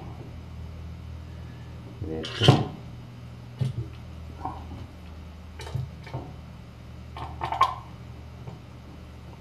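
Multimeter test probes clicking and scraping against the metal screw terminals of a switching power supply: several short knocks, the loudest about two and a half seconds in, over a steady low hum.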